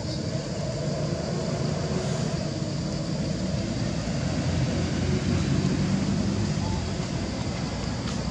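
A steady low mechanical rumble, like a motor running, holding at an even level.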